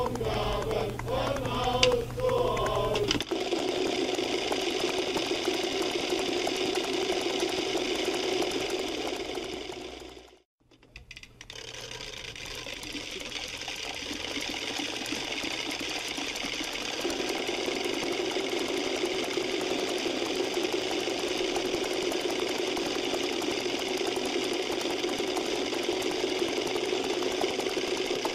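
Music with singing for about three seconds, then many wooden Easter rattles (Klappern) clattering together in a rapid, dense rattle. It fades out about ten seconds in, stops for a moment, and fades back in.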